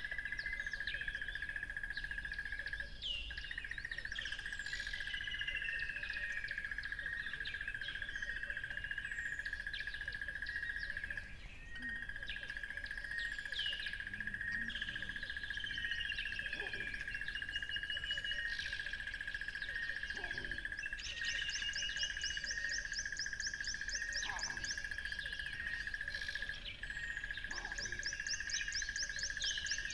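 Many songbirds chirping and calling together, with whistled glides and fast, high, rattling trills. Under them runs a steady, unbroken high-pitched drone that drops out briefly a few times.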